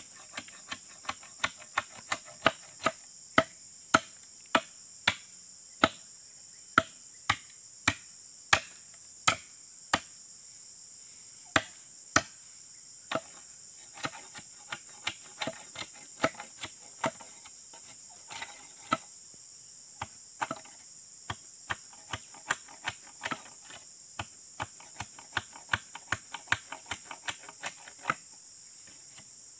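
Sharp knocks of a small curved blade chopping at the end of a wooden pole, about one and a half a second, lighter and more uneven in the second half: the broken wooden handle of a dodos palm-harvesting chisel being trimmed. A steady high drone of crickets runs underneath.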